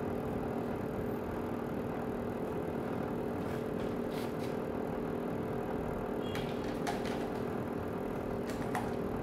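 A steady droning hum, with a few light, sharp plastic clicks and taps from the parts of a garment steamer's head and brush attachment being handled and fitted.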